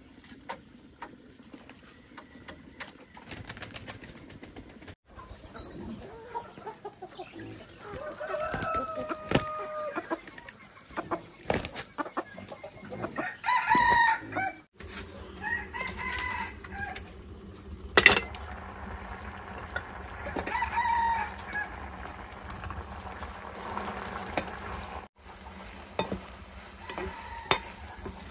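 Chickens clucking, with a rooster crowing now and then, heard in several short cut-together stretches. A sharp knock about eighteen seconds in is the loudest sound.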